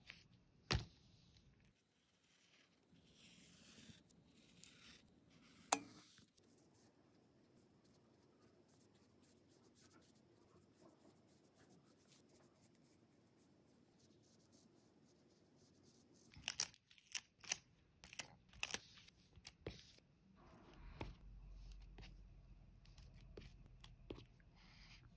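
Quiet paper-crafting sounds. A couple of sharp clicks and the rasp of a sticker being peeled from its backing sheet, then a marker stroking softly on grid paper, and a quick run of sharp clicks and taps about two-thirds of the way through.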